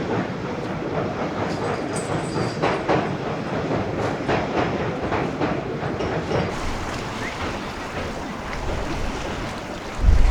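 A train running on rails, its wheels clacking over the rail joints in a quick run of clicks.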